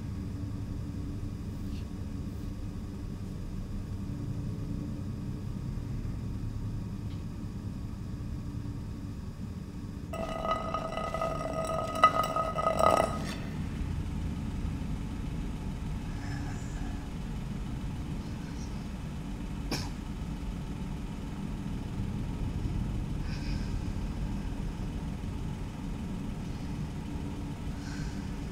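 Car engine idling with a steady low rumble, heard from inside the car. About ten seconds in, a strained pitched sound lasts about three seconds.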